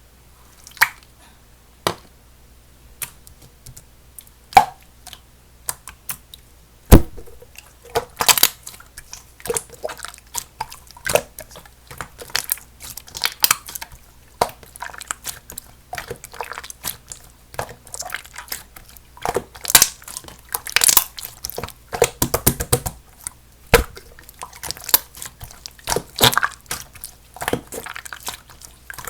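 Clear slime with snow powder mixed in being squished and pressed by hand, giving irregular wet clicks, pops and crackles. They come sparsely at first and then thick and fast, with a quick rattle of clicks a little past two-thirds of the way through.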